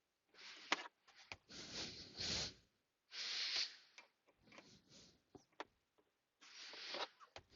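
Hand-tool work on a seat-mount bolt: a wrench on a 10mm bolt giving a handful of short scrapes and sharp clicks with gaps between.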